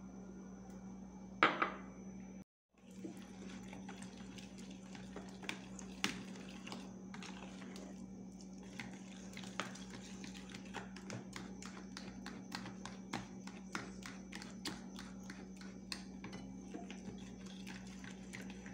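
Fork beating eggs into mashed jiló in a plastic bowl: quick, steady clicks of the fork against the bowl, several a second, over a steady low hum. There is one louder clatter about a second and a half in.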